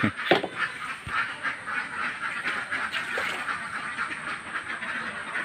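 A flock of ducks quacking, a steady stream of many short, overlapping calls.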